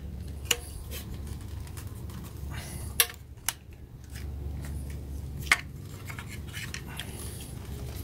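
Plastic wiring-harness connectors on a Nissan engine control unit being worked loose by hand, with about four sharp clicks as the latches and plugs snap and knock against the unit's housing.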